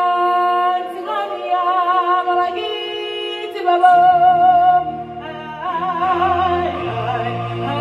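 A solo voice singing long, held notes with vibrato in live stage-show music, with a low, steady accompaniment coming in about halfway through.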